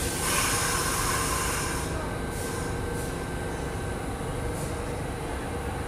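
New York City IRT subway train running through the station with a steady rumble. A burst of air hiss lasts for about the first second and a half, and a few short hisses follow later.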